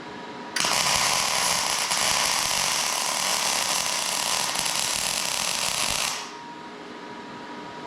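A workshop tool runs in one harsh, hissing burst of about five and a half seconds, starting and stopping abruptly.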